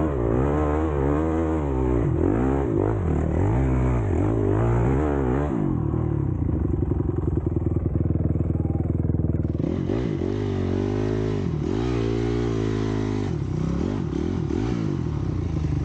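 Dirt bike engine running under a rider: the revs rise and fall while riding, settle to a steady idle for a few seconds around the middle, then rise and fall again.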